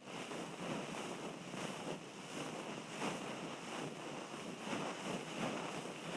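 Ear cleaning close on the microphone: continuous scratching and rubbing against the ear, a dense rustling noise with faint uneven strokes. It starts and cuts off abruptly, loudest just before it stops.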